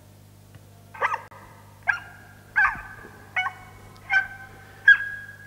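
A recorded dog bark sample played back over a hall's loudspeakers: six high-pitched barks in a row, about three-quarters of a second apart, over a steady low hum. This is the high-pitched kind of bark that listeners rate as the most annoying.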